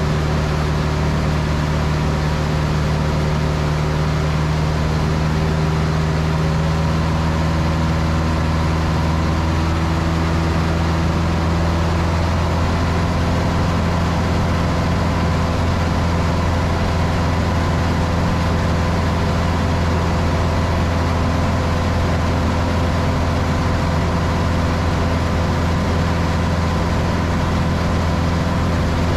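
Cessna 162 Skycatcher's Continental O-200 four-cylinder engine and propeller running steadily in flight, heard inside the cockpit. Its tone shifts slightly about twelve seconds in.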